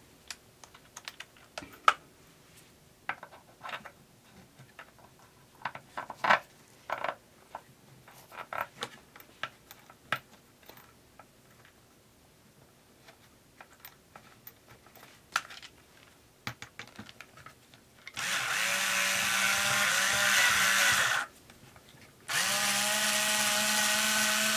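Scattered light clicks and knocks of parts being handled inside a speaker cabinet, then a cordless drill-driver running twice with a steady whine, each run a few seconds long, driving the screws at the woofer opening's rim.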